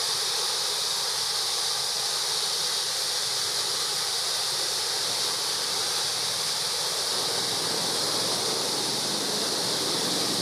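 Waterfall rushing steadily, a continuous hiss of falling water with no bird call standing out.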